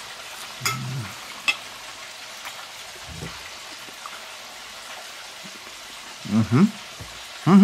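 Deep fryer with a breaded bacon cordon bleu in the hot oil, bubbling and sizzling steadily. Short voiced murmurs from a man break in about a second in and again near the end.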